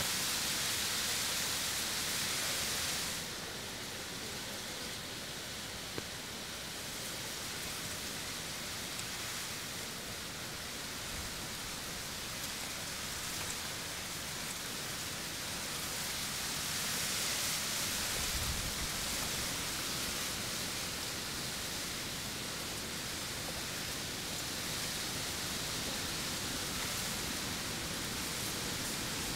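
Steady outdoor hiss with no distinct events, growing brighter and louder for about three seconds at the start and again briefly around the middle.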